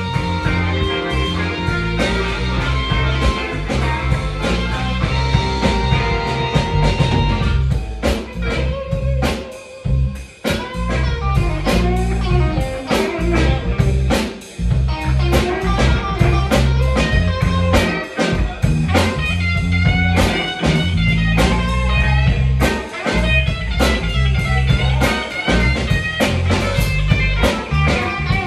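Live band playing an instrumental blues-rock passage, with electric guitars, bass, fiddle and drum kit. The band drops out briefly about ten seconds in, then comes back in.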